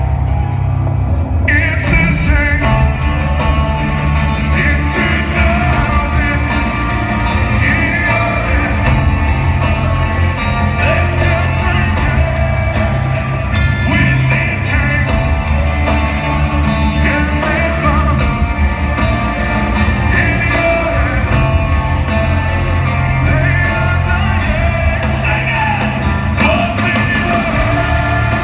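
Rock band playing live through an arena's PA, with singing over the band; the sound grows brighter about a second and a half in.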